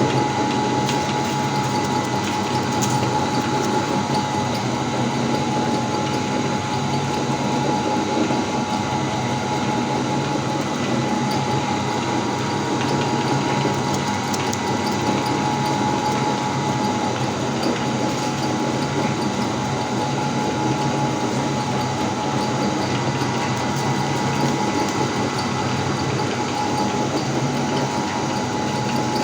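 Electric meat grinder running steadily, grinding ice cream cones: a constant motor whine over a low rumble, with faint scattered ticks.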